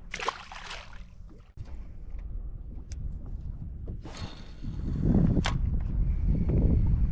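Casts with a fishing rod: a swish of the rod and line at the start and again about four seconds in, with a low wind rumble on the microphone in the second half.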